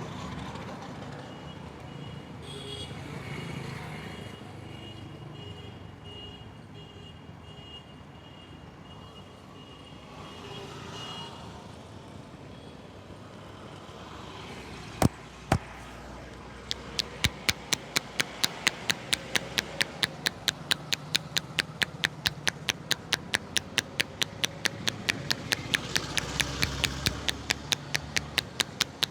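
Street traffic in the background, then two sharp slaps about halfway through, followed by a long, even run of sharp hand slaps, about three a second: a barber's rhythmic percussive tapping in a head massage.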